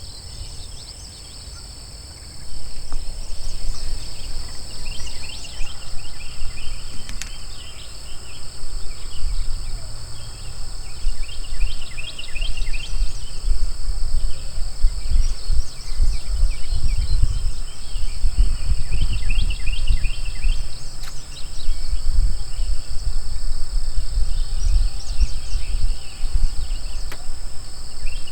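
Outdoor field ambience: a steady high insect drone, short runs of bird chirping every few seconds, and a low rumble of wind on the microphone that starts about two and a half seconds in and is the loudest part.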